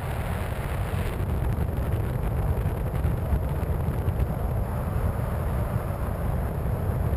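Airflow rushing over the wing-mounted camera of a Skywalker 1900 RC plane in flight: a steady heavy rumble of wind buffeting with hiss above it, the hiss growing brighter about a second in.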